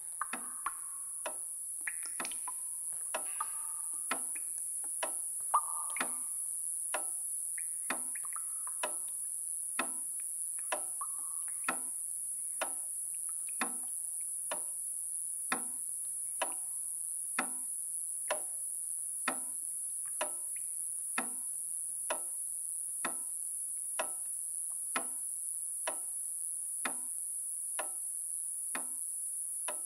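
A clock ticking steadily, about one tick a second, over a constant high hiss. A few faint musical tones sound in the first few seconds.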